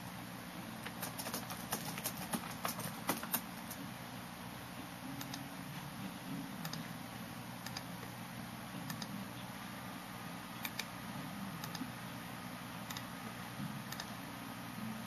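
Typing on a computer keyboard: a quick run of key clicks for the first three seconds or so, then single scattered clicks, over a steady low hum.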